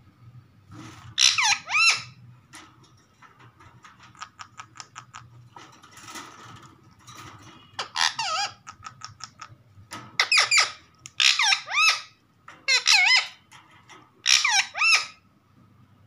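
Indian ringneck parakeet giving a series of loud, shrill screeching calls, most of them in quick pairs. Runs of fast clicking fall between the calls.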